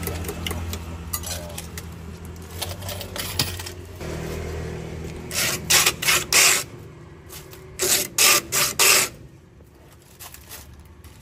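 Shaved ice scooped up by hand from a metal tray: a run of short, sharp scraping bursts, three and then four, over a low steady background hum.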